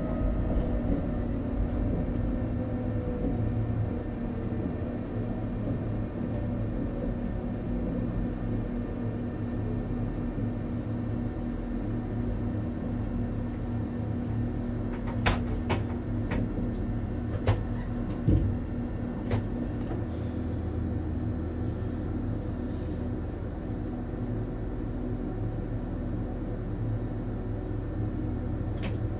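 Electric train heard from the driver's cab, moving slowly: a steady low hum with a whine that falls in pitch over the first few seconds, and a few sharp clicks about halfway through.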